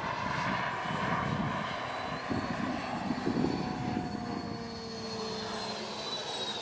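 Model turbine jet engine of a radio-controlled F-86 Sabre in flight: a continuous jet rush with a thin high whine. The whine and the lower tones slide down in pitch in the second half.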